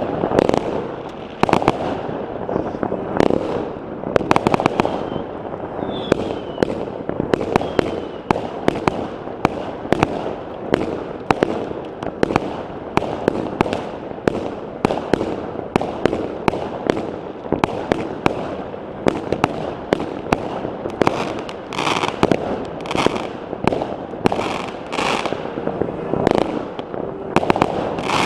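Many fireworks and firecrackers going off at once: a continuous string of sharp bangs and crackles, several a second, with a faint falling whistle about six seconds in.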